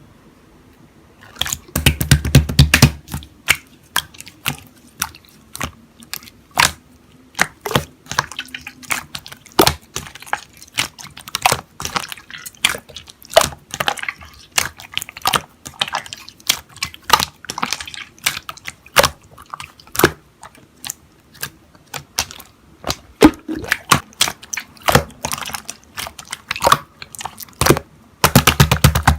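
Slime being squished and poked by hand, giving an irregular run of sharp, wet clicks and pops, with heavier, fuller squishes about two seconds in and again near the end.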